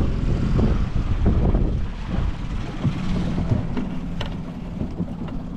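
Wind rumbling on the microphone over a boat motor's low hum. The rumble eases about two seconds in.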